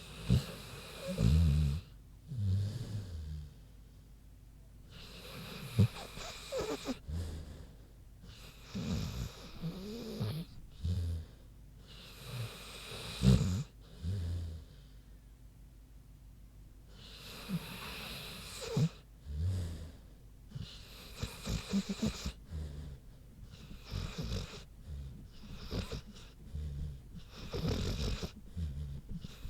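American Bulldog snoring in sleep: low snores and snorts with hissing breaths, one breath cycle about every three to four seconds.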